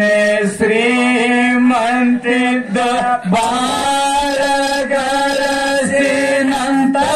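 A man chanting a Kannada dollina pada folk song with no drum, holding long drawn-out notes with short breaks for breath. The pitch steps up shortly after the start.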